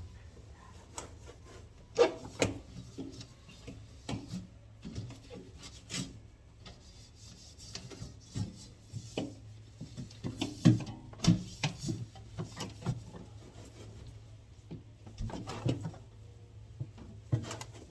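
Scrubbing and wiping inside a fridge, rubbing to get stuck cake cream off, with irregular knocks and clatters against the fridge's fittings.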